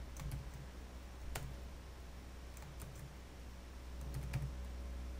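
A few scattered keystrokes on a computer keyboard, separate sharp clicks a second or so apart, over a steady low hum.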